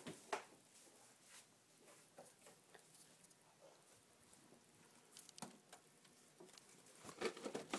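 Near silence with faint scattered clicks and rustles, a sharper click about five and a half seconds in, and busier rustling near the end.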